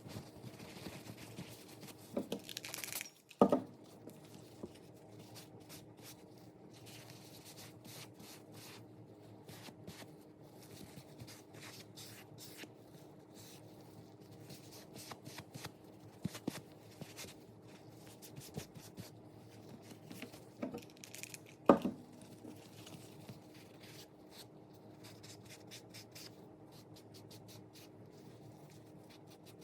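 Hands working over a leather wallet: scratchy rubbing and small clicks over a steady low hum, with two sharper knocks, one a few seconds in and one about two-thirds of the way through.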